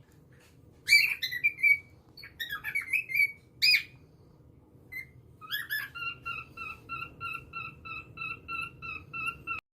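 Cockatiel chirping and calling: a few sharp, sweeping chirps, then a rapid run of evenly spaced repeated notes, about four a second, that cuts off suddenly near the end.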